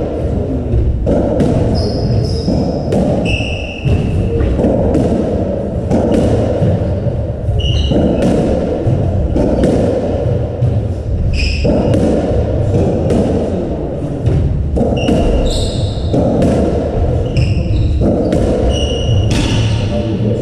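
Racketball rally in an enclosed, echoing court: the hollow rubber ball thudding off the walls and floor and off the rackets every second or two, with shoes squeaking briefly and often on the wooden floor.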